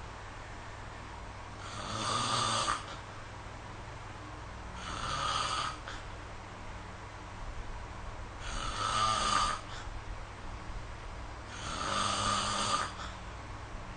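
A person snoring in sleep, four snores about three to four seconds apart, each lasting about a second.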